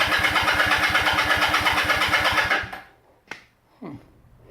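1976 Kawasaki KZ400's parallel-twin engine turning over in a fast, even chug of about nine pulses a second, then dying away just under three seconds in without running on. A short sharp click follows.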